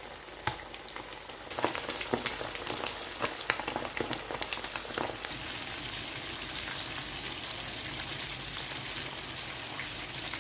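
Flour-coated chicken wings frying in hot oil in a frying pan: a busy sizzle with many sharp crackles and pops, heaviest in the first few seconds after the wings go into the oil, then settling into a steadier sizzle.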